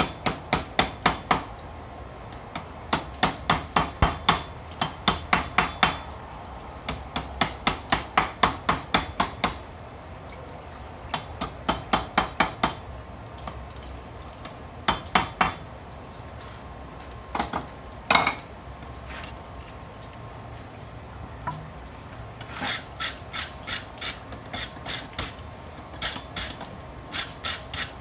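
Hand hammer striking the red-hot end of a railroad spike on an anvil, in runs of quick blows about three to four a second with short pauses, as the bottle-opener end is forged. A little after halfway comes one louder ringing blow. In the last few seconds there is a softer, even back-and-forth scrubbing of a wire brush on the hot steel.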